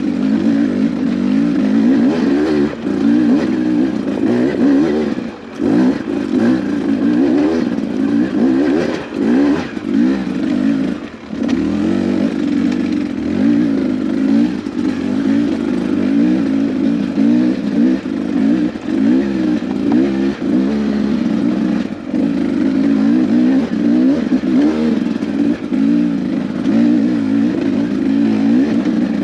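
Beta 250 RR two-stroke dirt bike engine running under a constantly changing throttle, its note rising and falling as it is ridden on trail, with brief throttle-offs about five and eleven seconds in.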